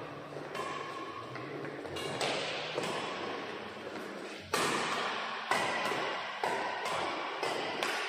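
Badminton rackets striking a shuttlecock in a fast doubles rally, a sharp hit about once a second, echoing in a large hall; the loudest hit comes about halfway through.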